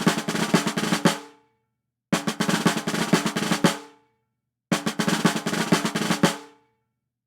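Three short drum rolls, each a quick run of rapid strokes ending on a louder accented hit that rings out briefly, with a gap of silence between them.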